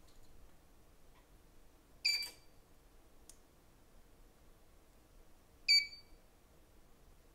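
Shortkiller short-removal tool beeping twice, short high-pitched beeps about three and a half seconds apart in a steady repeating series, while it works on a partial short on the iPhone 8 board.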